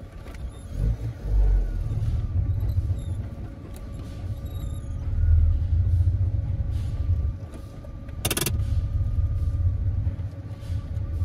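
Tofaş car engine running, heard from inside the cabin as a low, uneven rumble while the car is manoeuvred, with one short knock about eight seconds in.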